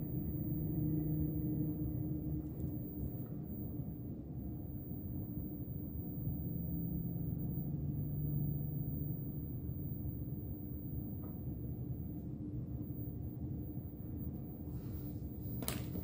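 Steady low electrical or mechanical hum of a room, with a faint drone of two steady tones, and a couple of light clicks near the end.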